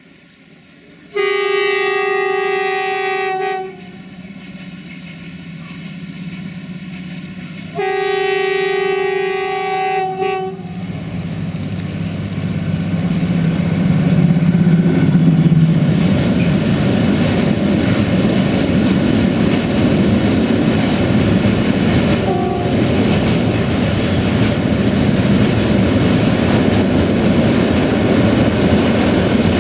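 CFR Marfă 060-EA (LE 5100 kW) electric locomotive sounding its horn in two blasts of about two and a half seconds each, the second some four seconds after the first. Then the rumble of the locomotive and its tank wagons rolling past grows louder and settles into a steady run of wheels on rail.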